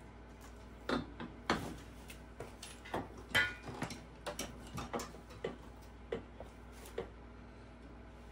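Irregular metallic clicks and knocks as a Kunray electric motor and its mounting screws are fitted into a Razor MX650 frame by hand, one clink a little before the middle ringing briefly.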